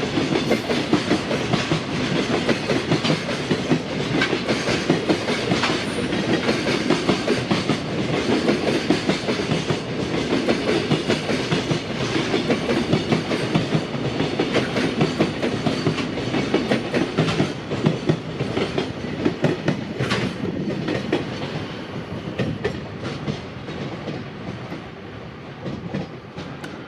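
A train passing close by over a level crossing, its wheels clacking rapidly and continuously over the rail joints, the sound easing off in the last few seconds.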